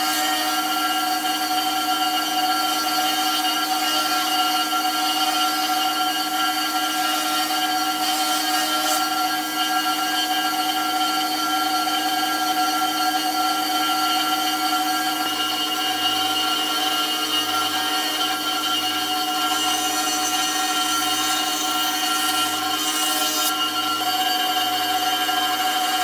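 Wadkin EQZ high-speed router table running at speed with a steady high whine, its small 4 mm round-over bit cutting timber strips, which adds a hiss about 8 seconds in and again for a few seconds later on.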